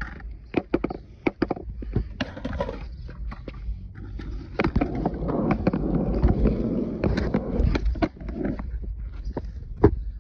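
Skateboard knocking on a concrete sidewalk during kickflip attempts: a string of sharp clacks from the tail popping and the board hitting the pavement. About four and a half seconds in comes a few seconds of steady rumbling noise, and there is one last loud clack near the end.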